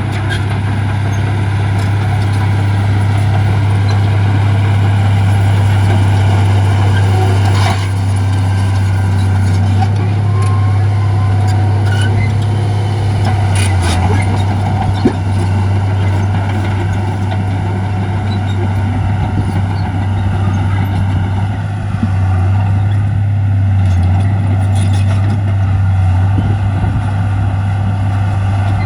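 Heavy diesel engine of earthmoving equipment running steadily, with a deep constant hum, and a couple of short sharp noises about a third and halfway in.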